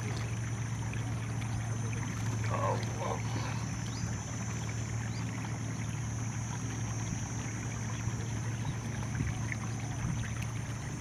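Steady open-air ambience beside a rice paddy: a low steady hum and a thin high steady whine over a soft hiss, with two short calls about two and a half seconds in.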